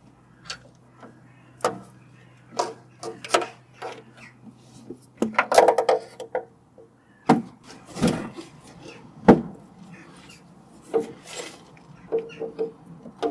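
Irregular clicks, knocks and a scraping rustle from hand tools and parts being handled during coil pack and spark plug work on the engine, with a faint steady hum underneath.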